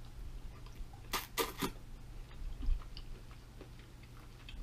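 Close-miked chewing of a mouthful of noodles (shrimp scampi with ramen), with a few short, sharp wet noises about a second in.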